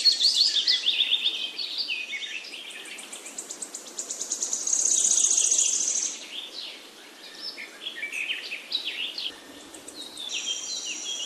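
Birds chirping and singing: many quick, high, falling chirps, with a loud, rapid high trill about five seconds in.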